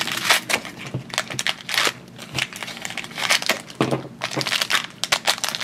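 A thin LDPE plastic blind bag crinkling and crackling in the hands as it is taken out of a small plastic toy basket and opened, with many irregular sharp crackles.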